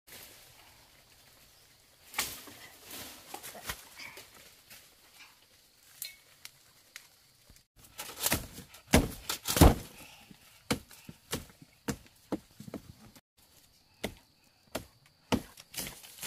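Digging with a hand tool in forest ground: a run of chopping strikes into soil and roots. They come irregularly at first and are loudest a little past the middle, then settle to about two strikes a second near the end.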